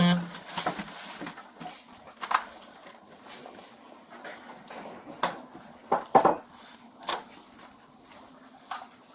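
Scattered clicks, knocks and light clatter of boxes and archive items being handled and shifted, the loudest knock about six seconds in.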